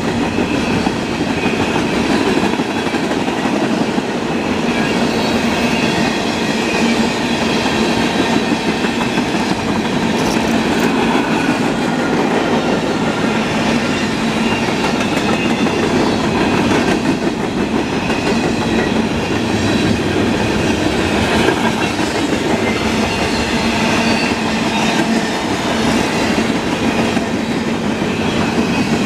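Freight cars of a mixed freight train rolling past at steady speed, steel wheels rumbling and clattering over the rails without let-up.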